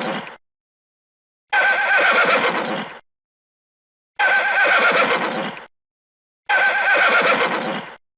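Horse whinnying: the same quavering neigh repeats three times, each about a second and a half long, with dead silence between, as a looped sound effect. The tail of an earlier neigh fades out at the very start.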